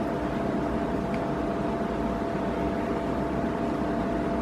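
Steady hum of room background noise: an even noise with a faint constant tone, unchanging throughout.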